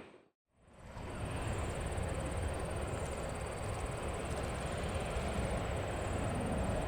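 Distant jet engine noise from a Mitsubishi CRJ-700 regional jet on approach, a steady rushing hum that grows slightly louder, with a faint thin high tone above it.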